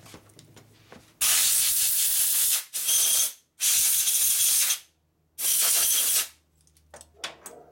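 Compressed-air blow gun giving four blasts of hiss, about a second each with short gaps, blowing leaked fuel off a carburetor to see whether it stays dry. A few faint clicks of handling follow.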